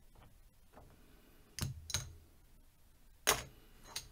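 Casino chips clacking together as they are picked up and stacked, three sharp clicks: two close together about one and a half seconds in, and one more a little past three seconds.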